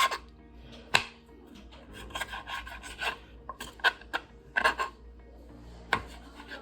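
Short bouts of rubbing and scraping as something is handled by hand, with a sharp knock about a second in and another near the end.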